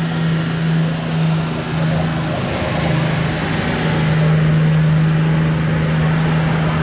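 Nissan Patrol GU ute's engine running at a steady low speed as it crawls through a river crossing, with rushing water over it.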